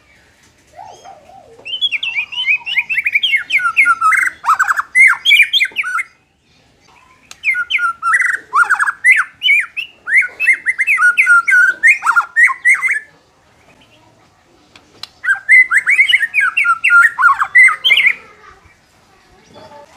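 White-rumped shama (murai batu) singing in three bouts of rapid, varied phrases with short quiet pauses between them.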